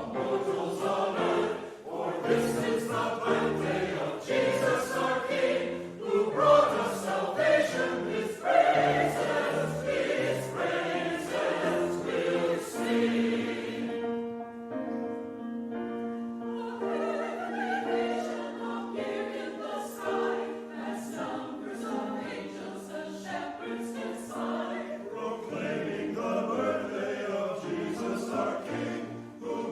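Church choir singing a Christmas choral piece. About halfway through, the voices soften and hold a long chord, then the singing picks up again.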